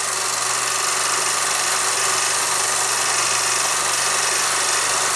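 Film projector and old optical soundtrack running: a steady hiss with a constant low hum and no narration.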